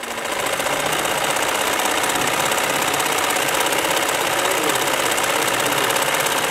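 Kanta sewing machine running, its needle stitching in a rapid, even mechanical rhythm that builds up over the first half second and then holds steady.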